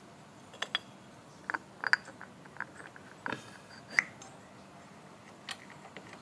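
Light clicks and clinks of small metal parts and tools being handled during motorcycle repair work, scattered irregularly, with the sharpest knocks about two and four seconds in.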